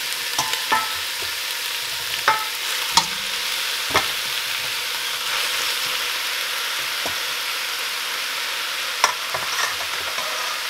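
Diced carrots, celery and onion sizzling in olive oil in a stainless steel stock pot as raw chicken thighs are laid in with metal tongs. The steady sizzle is broken by several sharp clicks of the tongs, most in the first four seconds and two more near the end.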